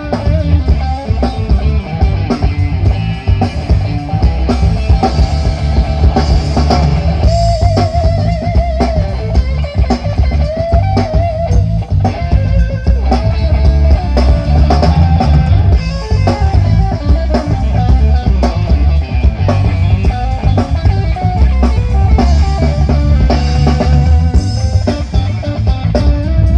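Loud rock-style music with guitar and drums played through a sound system being checked, very heavy in the bass.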